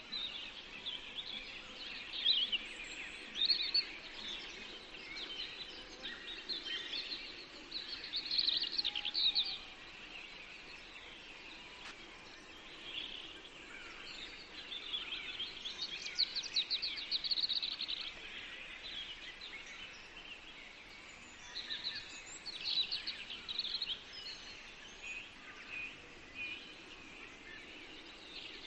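Several small songbirds singing: bursts of chirps and fast trills, loudest around two, eight to nine, sixteen to eighteen and twenty-two to twenty-three seconds in, over a faint steady background noise.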